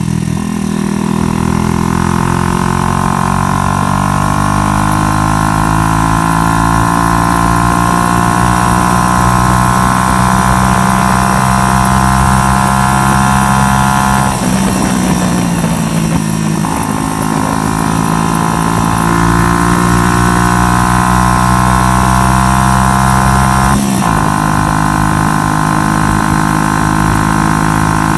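A 125cc motorcycle engine running at steady revs under way. The note climbs at the start, goes rough for a couple of seconds about halfway before settling back, and drops abruptly near the end, as at gear changes.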